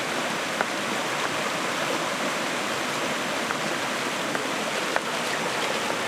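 Steady rush of a shallow river flowing over stones, with a couple of faint short clicks, one about half a second in and one near five seconds in.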